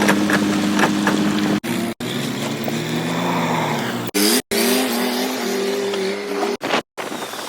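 Vehicle engines running in a string of short clips joined by abrupt cuts. The steady engine tone changes pitch from one clip to the next, with one rising glide about four seconds in.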